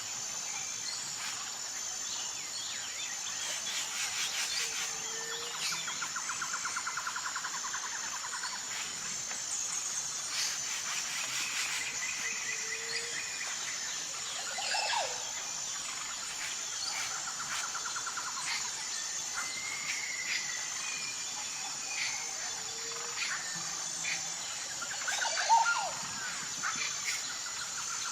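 Jungle ambience: a steady high-pitched pulsing insect drone with scattered bird chirps and calls. Rapid buzzing trills come and go every ten seconds or so, and the loudest call is a quick falling sweep about 25 seconds in.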